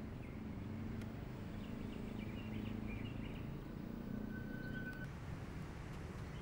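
Outdoor ambience: a steady low rumble, with faint bird chirps a couple of seconds in and a short high steady whistle-like tone about four seconds in.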